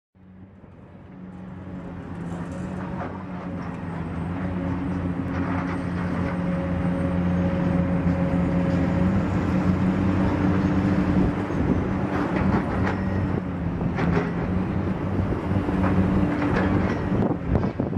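A steady low droning hum made of several held tones, fading in over the first few seconds, with a few scattered knocks and clicks.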